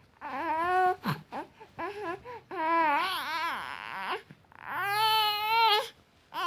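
An infant crying: three long cries, with short broken sounds between them.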